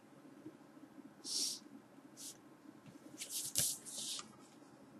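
Faint rubbing and scuffing of a cardboard LP sleeve being handled and turned, in a few short bursts, thickest about three to four seconds in.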